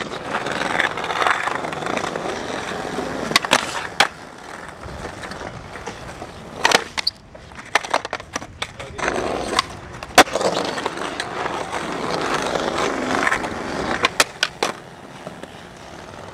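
Skateboard wheels rolling over concrete, with sharp clacks from the board several times: about three and a half and four seconds in, near seven and ten seconds, and a quick cluster near the end. The rolling fades between the two stretches of riding.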